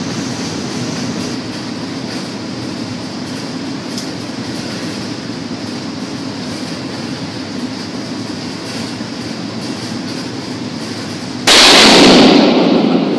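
Steady background hum, then, about eleven and a half seconds in, a single very loud shot from a Barrett .50 BMG sniper rifle, with a ringing echo in the indoor range that dies away over about a second and a half.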